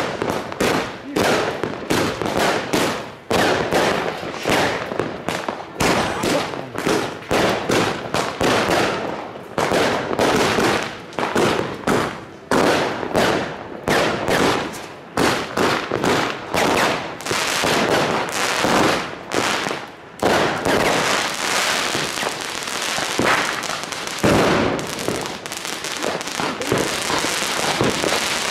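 Many fireworks going off at once: rocket shells bursting and firecrackers banging in a rapid, overlapping string of bangs, which thickens into a near-constant crackle about two-thirds of the way through.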